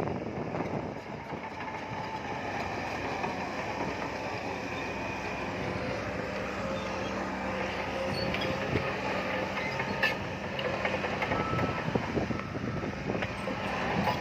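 Heavy earthmoving machinery at work: a diesel engine running steadily under load, with scattered metallic knocks and clanks.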